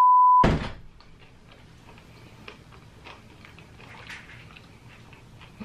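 A loud steady censor bleep that cuts off suddenly about half a second in, followed by faint scattered clicks and smacks of chewing.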